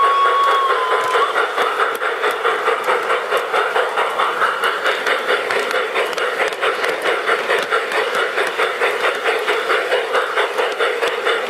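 LGB Stainz model steam locomotive running along garden track with a steady rhythmic beat of about three a second. A whistle that steps up slightly in pitch ends about a second in.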